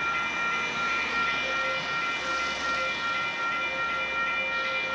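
Level crossing warning bell ringing steadily with a quick repeating pulse, signalling that a train is approaching.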